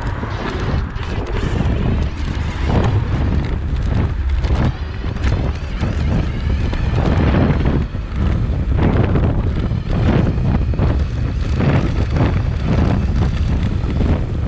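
Wind buffeting the microphone in irregular gusts over a steady low rumble of the tyres on asphalt, from a Dualtron Raptor 2 electric scooter riding along at speed, recorded right beside its front wheel.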